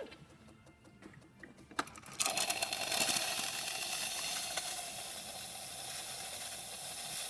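Gaggia Academia espresso machine's steam wand. After a couple of faint clicks, the steam opens about two seconds in with a sudden loud hiss that carries on steadily, a sign of good steam pressure.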